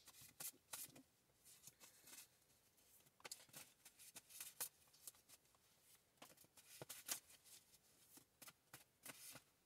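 Faint, irregular soft clicks and swishes of tarot cards being handled and shuffled.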